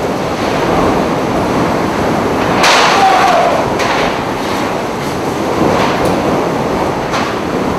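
Hurricane-force wind with driving rain, blowing hard and without a break, with a stronger gust about three seconds in.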